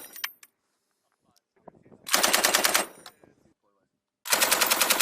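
Machine gun firing two short bursts of rapid automatic fire: one of under a second, about two seconds in, and a longer one beginning near the end, each with a short echoing tail.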